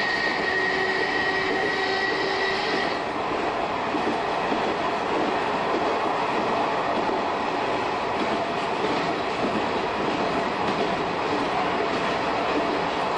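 Shin-Keisei 200 series electric train with nose-suspended traction motors running on track, heard from the driver's cab. A steady whine cuts off about three seconds in, leaving the rumble of the wheels on the rails with faint clicks over the joints.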